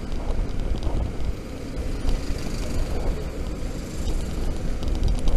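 Road traffic noise with an uneven low wind rumble on a microphone mounted on a scooter rider's helmet visor.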